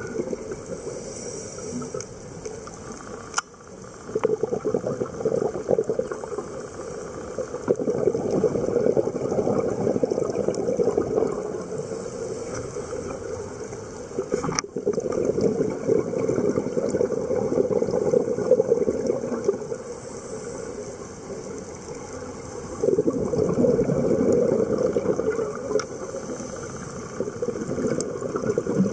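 Scuba exhalation bubbles burbling and rushing, heard underwater, swelling and fading in surges of a few seconds over a steady watery hiss.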